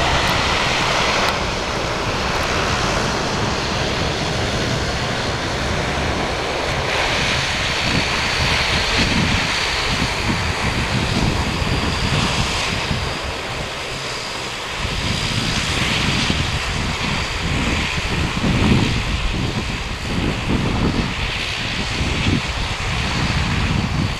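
RAF Boeing Chinook tandem-rotor helicopter flying low on its landing approach: a heavy, pulsing rotor beat from its twin rotors over a steady high whine from its twin turboshaft engines, dipping briefly in loudness about halfway through.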